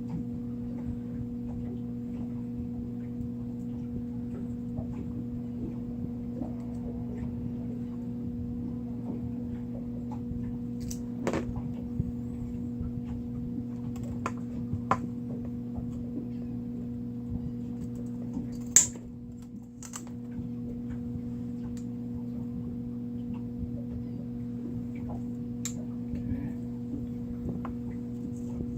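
Scattered light clicks and ticks of steel leader wire, hooks and swivels being handled and twisted by hand, with one sharper click about two-thirds of the way through, over a steady low hum.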